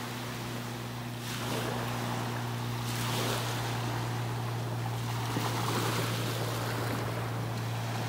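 Small waves breaking and washing up on a sandy Gulf beach, the wash swelling in surges every few seconds. A steady low hum runs underneath.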